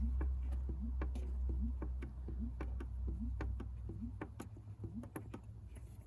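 Engine oil draining from the drain hole into a catch pan, glugging with short bubbling plops about two or three times a second, over a steady low hum.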